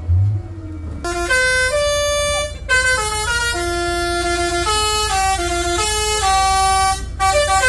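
Truck telolet horn, a multi-tone musical air horn, playing a quick melody of stepped notes. It starts about a second in and breaks briefly near the end, over the low steady running of a truck engine.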